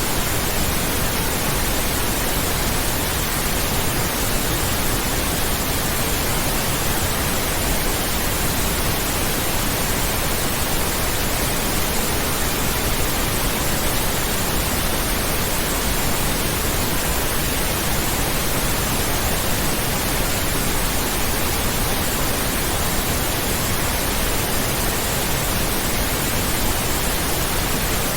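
Steady synthetic pink noise: a continuous, even hiss across all pitches, unchanging in level.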